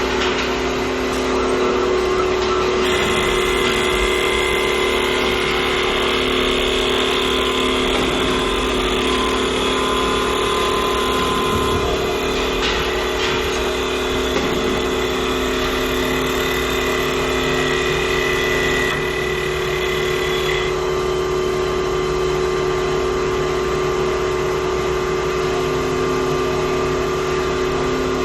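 CNC wood lathe running: a steady machine hum with a higher whine over it through most of the stretch, the whine dropping away about two-thirds of the way in.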